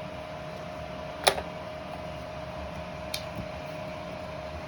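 Two clicks of a 3D-printed plastic door stopper being slid into place on a door: one sharp click about a second in and a lighter one a little past halfway, over a steady electrical hum.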